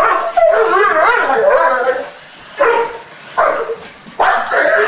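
A dog's excited vocalising: a high, wavering whine for about two seconds, then three short yelps a little under a second apart.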